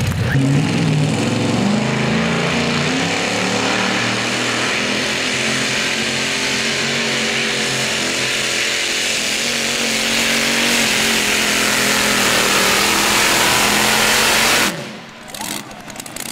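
Modified pulling tractor engines running flat out under load while pulling the weighted sled, loud and dense, the engine note climbing in the first couple of seconds. The loud engine sound drops off suddenly near the end.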